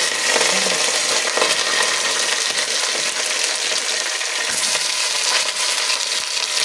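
Raw mutton pieces sliding from a plate into hot oil and browned onions in a pot, sizzling steadily as the meat starts to fry.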